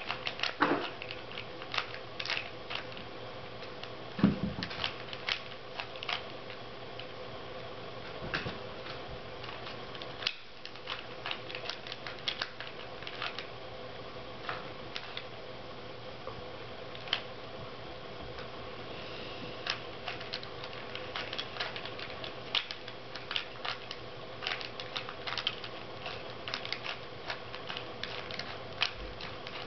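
Plastic Rubik's cube being turned fast in the hands: a steady run of irregular clicks and clacks as its layers snap round. A low thump stands out about four seconds in.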